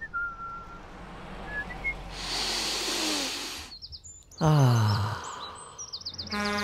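Cartoon sound-effect track of birds chirping, with a patch of hiss about two seconds in and a loud falling tone about four and a half seconds in. A steady hum starts near the end.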